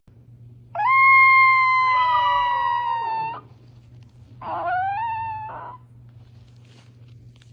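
A dog howling: one long, high, steady howl, then a shorter one that rises in pitch.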